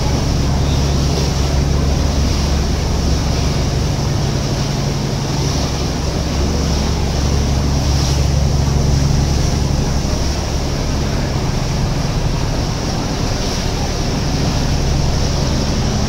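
A boat's engine running steadily with a low, even hum, over the rushing of the churning wake water at the stern.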